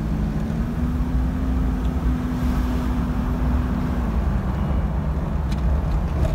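Car driving on the road: a steady low engine and road rumble, with an engine hum that holds until about four seconds in and then drops away.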